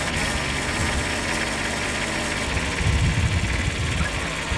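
Kubota B7100 compact tractor's three-cylinder diesel engine running steadily while working the front-loader hydraulics to lift a disc harrow. The engine note swells briefly about three seconds in.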